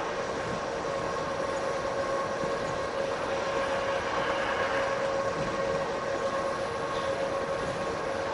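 Yaskawa Motoman HC10DT collaborative robot arm moving under program control, its joint motors giving a steady whine of several tones over a hum.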